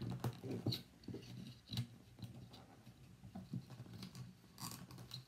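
Scattered small clicks and scrapes of thin, sturdy wire being bent and twisted by hand onto a wooden sign's hanging screws, over a low steady hum.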